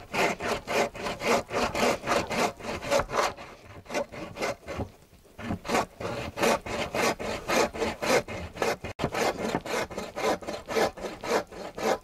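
Hand bow saw cutting across a wooden plank, fast back-and-forth strokes at about four a second, with a short pause about five seconds in.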